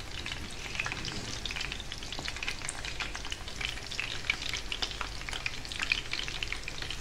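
Anchovy fritters (ukoy na dilis) frying in shallow oil in a pan: a steady sizzle thick with small irregular crackles and pops.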